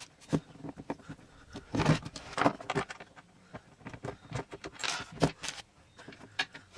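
Hand tool working the mounting nuts and bolts off a skateboard truck: irregular metal clicks and short scrapes.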